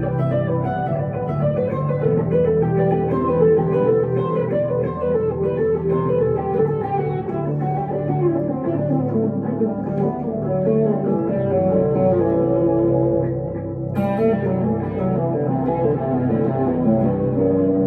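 Electric guitar, a 1962 Gibson Les Paul Custom through a Two-Rock Emerald Pro tube amp, playing a melodic line of quick and held notes with low notes sustained underneath. A sharply picked note or chord comes about 14 seconds in.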